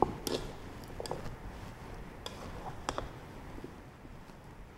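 Plastic rice paddle mixing cooked rice and mushrooms in a metal rice-cooker inner pot: soft squishing of the rice with a handful of light knocks and clicks as the paddle hits the pot.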